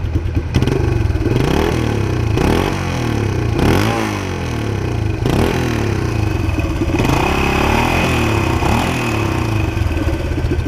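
1976 Honda XL175's single-cylinder four-stroke engine running warm, with the throttle blipped about six times, each rev rising and falling back to idle.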